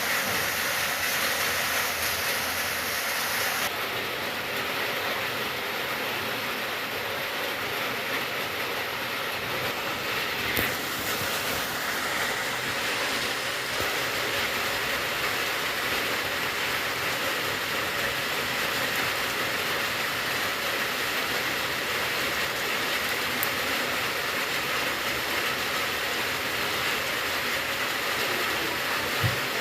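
Steady rain falling, an even hiss that holds at one level, with a few faint ticks.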